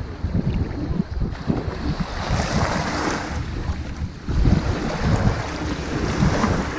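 Ocean waves washing onto a sandy beach: the hiss of the surf swells twice, about two seconds in and again near the end. Wind buffets the microphone with an uneven low rumble underneath.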